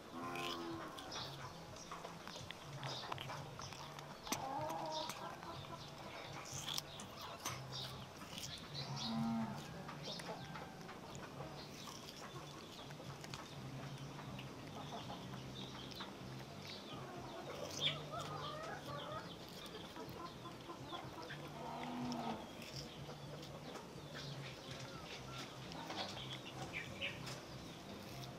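Faint outdoor background with short clucking-like calls of farm fowl every few seconds, over a steady low hum and scattered faint clicks.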